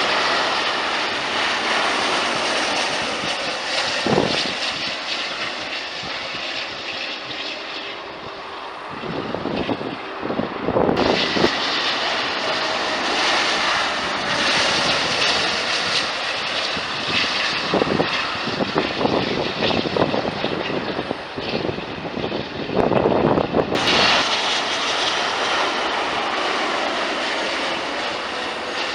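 Jet noise from an Airbus A380's four turbofan engines as the airliner passes low on approach and lands. The noise changes abruptly about 11 and 24 seconds in.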